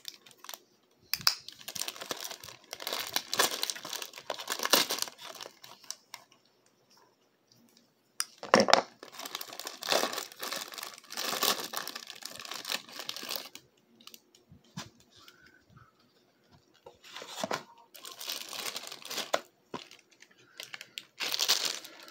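Hot Pockets plastic wrapper and packaging crinkling and tearing as it is handled and opened, in several bursts separated by short pauses.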